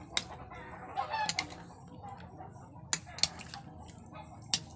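Metal spoon and fork clinking and scraping against a ceramic bowl as raw chicken pieces are tossed in marinade: several sharp clinks, the loudest about three seconds in.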